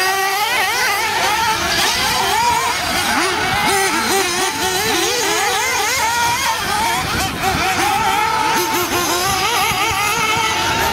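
Several 1/8-scale nitro off-road RC buggies and truggies racing, their small two-stroke glow engines revving up and easing off over one another in a constantly wavering whine.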